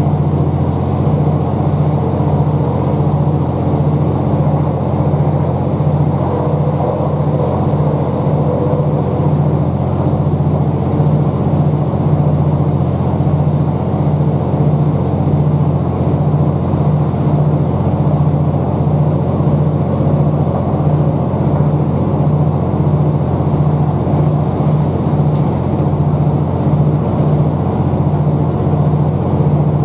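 The Class 769 bi-mode unit's underfloor MAN D2876 diesel engine running steadily beneath the coach as the train travels, heard from inside the carriage. It is a deep, loud drone with a slow, regular throb, mixed with the train's rolling noise.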